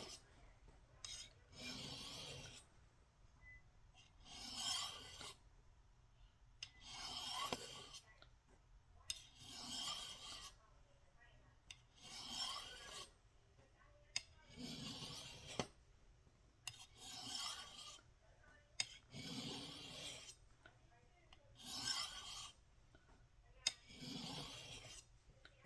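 A Kershaw Camp 10 knife blade is drawn down the fine white ceramic rods of a Lansky TurnBox sharpener, making a faint rasping stroke about every two and a half seconds. Now and then there is a light tick as the blade meets the rod. This is the fine honing stage of the sharpening.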